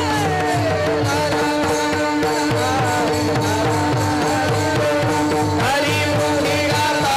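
Kirtan chorus singing a devotional chant together to the beat of small brass hand cymbals (taal), over a steady held drone and a low drum pulse.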